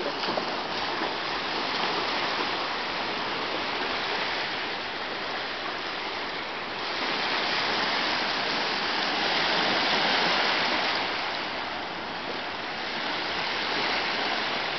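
Small sea waves breaking and washing up a sandy beach: a steady rushing that swells and eases as the waves come in. A dog splashes into the shallows at the very start.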